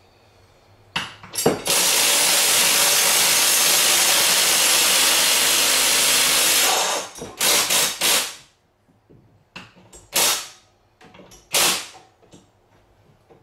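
Cordless drill driving a screw up into the ceiling: a couple of short blips, then one long run of about five seconds, followed by several short bursts as the screw is seated.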